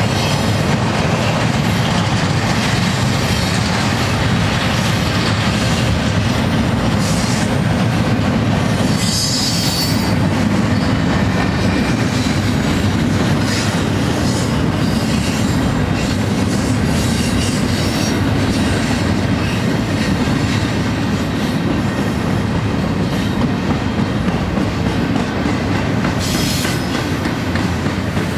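Double-stack intermodal train's loaded well cars rolling past: a steady, heavy rumble and rattle of steel wheels on rail. A brief high-pitched wheel squeal comes about a third of the way through.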